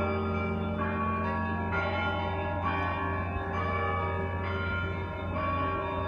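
Church bells ringing in a slow sequence, a new strike about once a second over the ringing of the earlier ones, above a steady low hum.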